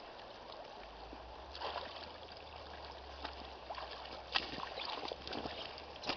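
Shallow river flowing steadily over a cobble bed, with the splashes and knocks of a person wading toward the bank in waders, most of them around four to five seconds in.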